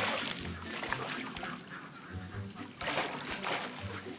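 Water splashing and churning as people swim in a river, over background music with a repeating bass line.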